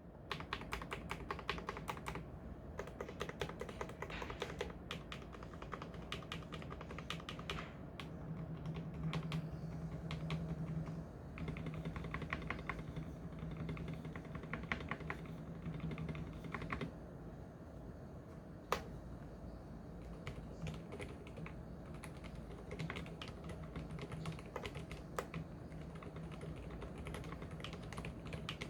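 Continuous typing on an Mstone mechanical keyboard with 45 g silent milky linear switches: a dense stream of keystrokes, with one sharper click a little past the middle, over a steady low hum.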